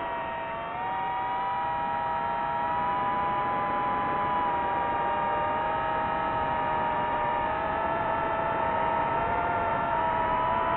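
DJI FPV quadcopter's motors and propellers whining in flight, a steady hum of several pitches that rises back just under a second in and then wavers slightly with the throttle.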